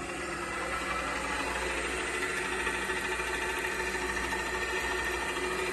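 Extruder screw drive of a 10-litre explosion-proof sigma-blade kneader mixer running under jog control with the button held down. Its motor and gearbox give a steady mechanical hum with a faint whine.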